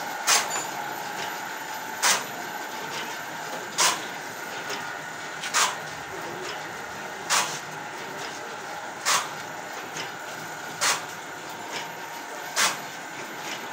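Roll-fed joss paper printing machine running: a steady mechanical whir with a sharp clack that repeats evenly about every second and three quarters.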